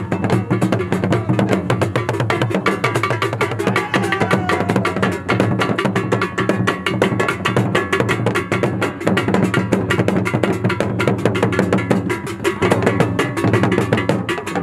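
Traditional Ghanaian drum ensemble playing live, a fast, dense rhythm of sharp strokes many times a second over a steady low sound.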